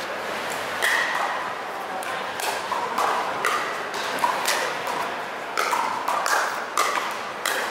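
Pickleball rally: hard paddles striking the plastic pickleball back and forth, each hit a sharp pop, about one a second.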